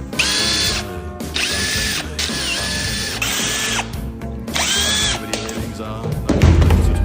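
Electric power drill/driver spinning up in about five short bursts, its motor whine rising then holding, as bolts are run out of a gearbox casing. A heavy low rumble comes near the end.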